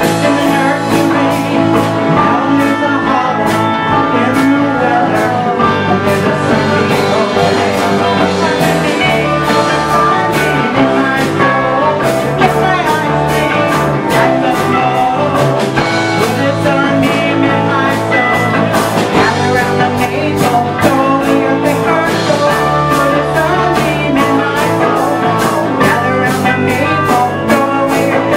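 A rock band playing live, with guitar over a steady drum beat.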